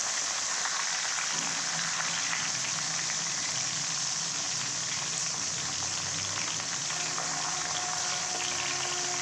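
Fish pieces frying in hot oil in a pan: a steady, even sizzle.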